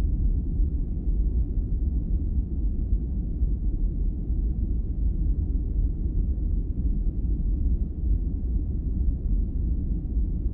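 Recorded lung auscultation sounds played back, heard through a stethoscope: a steady low noise with no distinct breath-by-breath rise and fall.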